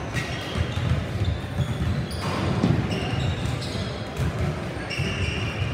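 Busy gym sound: basketballs bouncing on a hardwood floor, several short high sneaker squeaks, and a hubbub of voices.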